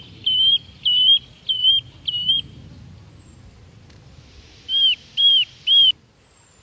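Bird calling: five short, loud whistled notes in quick succession, then after a pause of about two seconds three more arched whistles.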